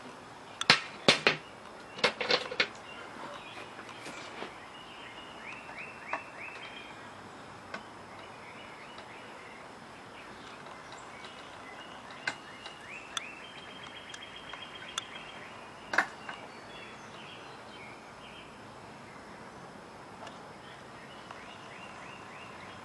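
Sharp metallic clicks and clanks of a hand tool on a seized stud in a small engine's cylinder block, in two quick clusters near the start and once more later. Birds chirp in short falling trills in the background.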